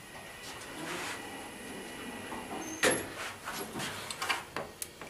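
A faint steady high whine in the elevator cab. About three seconds in comes a sharp click, then several lighter clicks and rattles as a hand tries the latch of a small cabinet door in the car's operating panel, a door that does not open.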